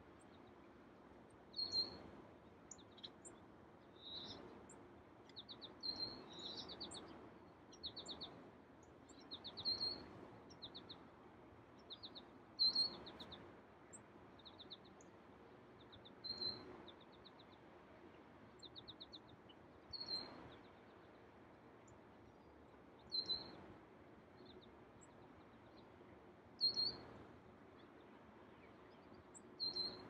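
Small songbirds calling at dawn: a short, sharp chirp about every three seconds, with quick high trills of rapidly repeated notes in between during the first twenty seconds or so.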